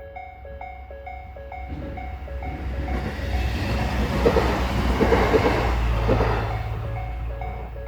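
Japanese railway level-crossing warning bell ringing, a quick even repeat of bell-like strikes. From about two seconds in, a Tobu Tojo Line train passes over the crossing: its running noise and wheel clicks swell to a peak around the middle, drowning the bell, and fade near the end.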